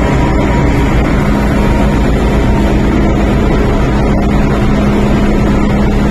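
MTR Island Line M-Train standing at a station platform with its doors open: a steady, loud hum from the train's on-board equipment mixed with the station's ventilation noise.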